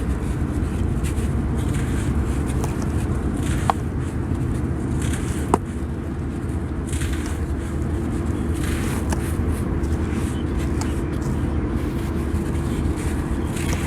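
Damp sand being crushed and crumbling, in short crackling, gritty bursts every second or two with a few sharp clicks, over a steady low rumble.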